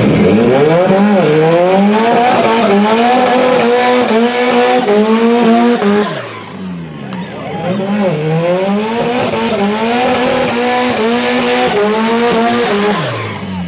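Modified Toyota Corolla's engine revving hard and held high with repeated dips and climbs while its rear tyres spin and squeal in a burnout. The revs drop briefly about six seconds in, then climb and hold again.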